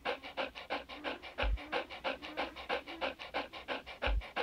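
Dog panting sound effect of an animated cartoon dog: quick, even panting at about six breaths a second. Two brief low bumps come about a second and a half in and near the end.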